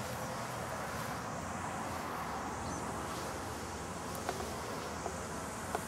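Steady low buzzing hum, with a few faint ticks in the second half.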